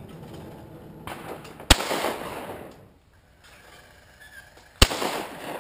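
Two shotgun shots about three seconds apart, each a sharp report followed by about a second of fading echo.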